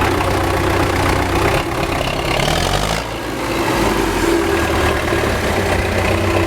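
Old MTZ tractor's diesel engine running steadily, its note shifting briefly about halfway through.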